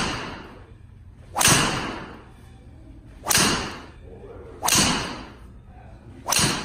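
Golf driver striking balls off a tee: five sharp cracks in quick succession, each followed by a ringing echo in a large indoor hitting bay.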